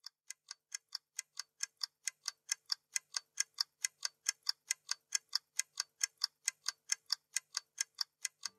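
Stopwatch ticking sound effect: a steady run of sharp, even ticks, about five a second, fading in over the first couple of seconds.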